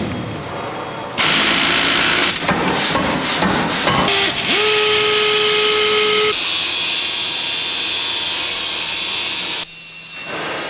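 Metalworking machine tools at work in a steam-locomotive repair shop, with abrupt cuts between them. First comes clatter and knocking, then a drilling machine whose whine rises into a steady tone about four seconds in. A harsh hiss of metal cutting follows, and the noise drops sharply near the end.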